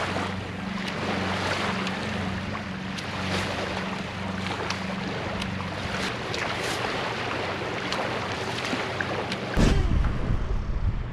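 Small waves lapping on a sandy shore, with a steady low hum underneath. About nine and a half seconds in, loud wind buffeting on the microphone takes over.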